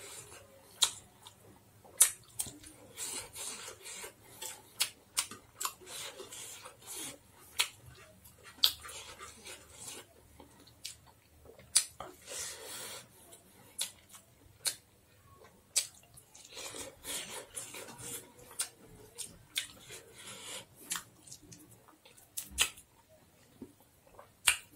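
Close-up eating sounds: chewing and lip-smacking with many sharp mouth clicks, and fingers mixing rice on a metal plate.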